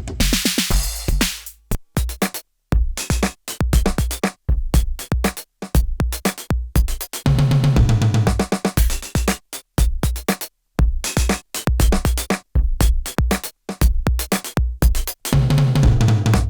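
IK Multimedia UNO Drum, an analog/PCM drum machine, playing a sequenced beat of deep kick thumps and sharp hits, recorded dry straight from its output. A cymbal-like wash rings at the start, with short gaps between hits, and a low held tone sounds about halfway through and again near the end.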